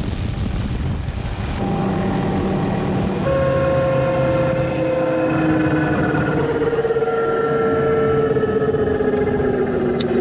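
Helicopter engine and rotor winding down after landing: a steady mechanical running sound carrying several whines that slowly fall in pitch.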